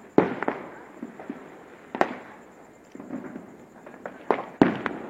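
Fireworks going off: about four sharp bangs, each trailing off in an echo, with two close together near the end.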